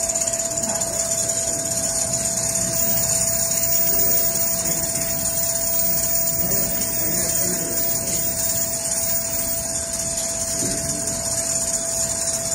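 Automatic large-frame furniture sewing machine running non-stop: the sewing head stitching through fabric clamped in a moving frame, a steady mechanical whirr with a constant whine over it.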